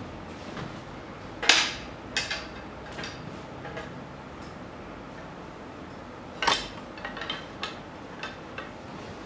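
Scattered sharp knocks and clicks over a low steady room background: two louder knocks, about a second and a half in and again about six and a half seconds in, each followed by a few lighter clicks.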